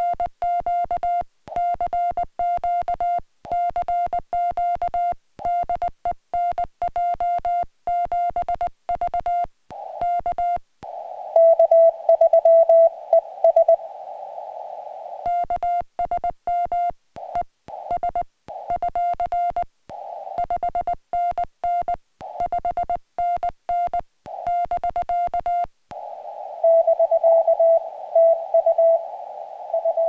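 Morse code from a Yaesu FT-817 transceiver: its sidetone beeps in quick dots and dashes as the operator keys with a small paddle, in runs with silent breaks between them. Twice, about eleven seconds in and again near the end, a slightly lower Morse tone comes through in a band of receiver hiss: another station answering.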